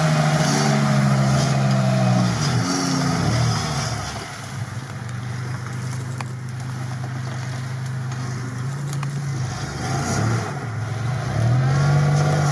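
Lada Niva's engine working hard to pull the car through deep swamp mud, holding steady revs, then easing off and picking up again a couple of times.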